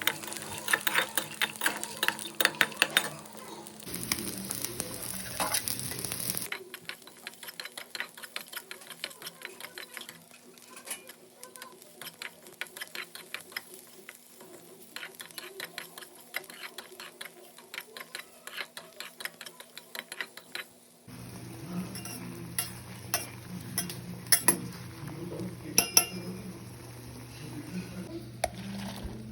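Cooking sounds: a utensil scraping and clicking rapidly against a pan, over a steady sizzle. The sound changes abruptly a few times.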